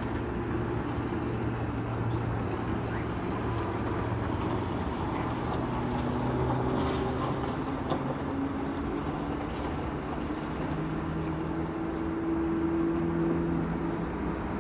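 An airplane's engine drones steadily, its pitch slowly rising and falling as the plane performs aerobatic manoeuvres.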